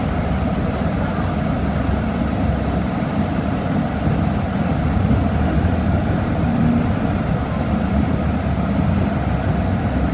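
Volkswagen Volksbus 17.230 Euro 6 bus engine running, a steady low rumble with a continuous noise haze over it.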